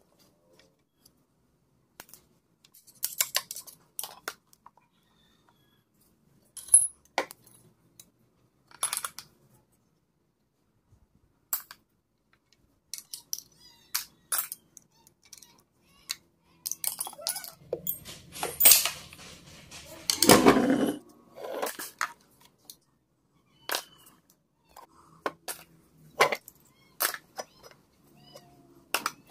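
Steel parts of an old Singer sewing machine being handled and taken apart by hand: scattered clinks, clicks and taps of metal pieces and a screwdriver, with a longer scraping rattle about two-thirds of the way through.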